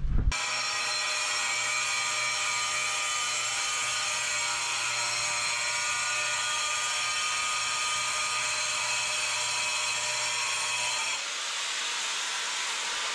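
Handheld power saw running steadily as it cuts dry into the edge of a granite countertop slab, a loud high whine. About eleven seconds in the low hum drops away and the tone shifts slightly.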